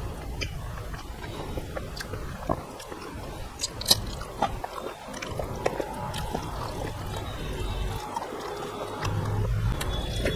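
Close-up eating sounds: fingers mixing rice with cooked vegetables on a steel plate and the eater chewing, with scattered small clicks, one sharper near the middle.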